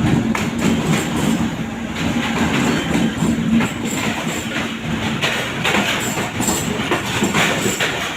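Train rolling past at speed, its wheels clattering steadily over the rail joints, with a low hum that fades about halfway through.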